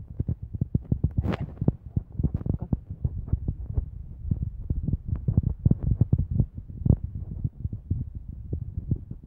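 Handling noise of a handheld camera or phone carried on a walk: irregular low thumps and rubbing, several a second, with one sharper scrape about a second in.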